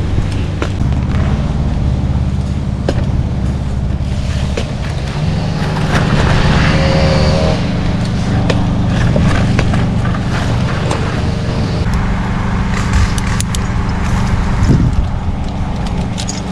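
An engine running steadily, its pitch shifting briefly about six to eight seconds in.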